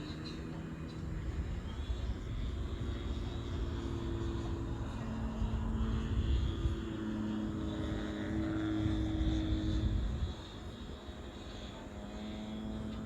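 F3A pattern radio-controlled aerobatic airplane in flight: a steady motor-and-propeller drone that shifts up and down in pitch as the power changes through the manoeuvres. It grows louder about two seconds in and falls away about ten seconds in.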